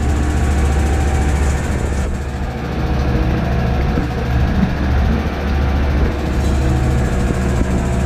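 Toshiba top-loading automatic washing machine in its spin-dry cycle, the drum spinning with a loud, steady low hum.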